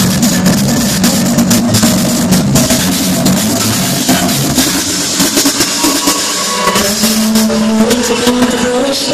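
Loud electronic dance music with a steady beat and a wash of noise on top; about four seconds in the low kick thins out, and sustained synth notes come in from about six seconds.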